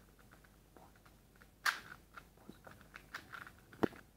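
Plastic Cyclone Boys 2x2 speed cube being turned and handled by hand: scattered light clicks and crunchy scrapes of the layers, with a sharper click about a second and a half in and another near the end.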